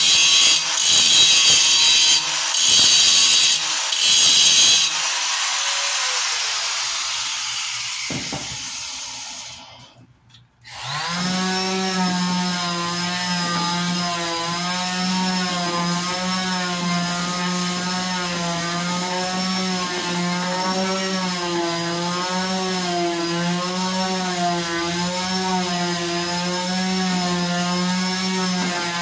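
Handheld electric sander worked over a sign panel. It rasps in strokes for the first five seconds, then winds down and cuts out about ten seconds in. A second later it starts again and runs on with a steady hum whose pitch wavers as it is moved across the panel.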